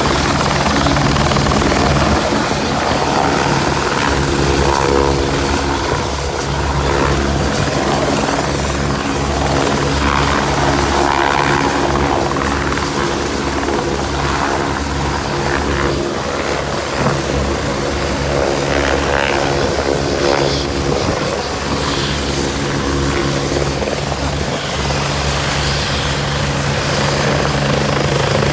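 Helicopters running at close range: a steady rotor beat under a high, thin turbine whine. One helicopter hovers low and lifts away while a twin-engine AgustaWestland AW109 turns its rotor on the pad.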